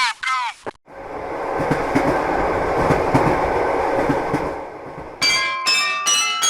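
Train passing over a Japanese level crossing: a rush of rumble and wheel clatter for about four and a half seconds. After it, the crossing warning bell rings about twice a second. It opens with a short sound gliding down in pitch.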